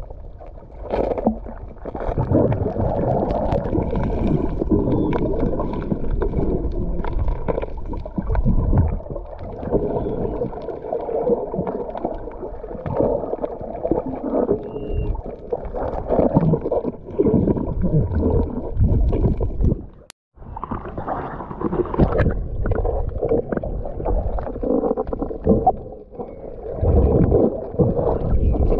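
Muffled underwater sloshing and gurgling picked up by a submerged camera, swelling and fading unevenly with the movements of the water, with a brief dropout about two-thirds through.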